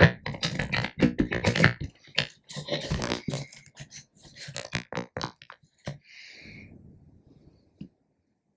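Irregular clicks, knocks and rattles of hand tools and plastic parts being worked on, removing the screws on a dashboard cover, followed by a short breathy exhale about six seconds in.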